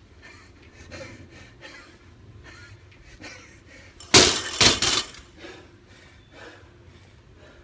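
A sudden loud crash, a clatter in two bursts about half a second apart.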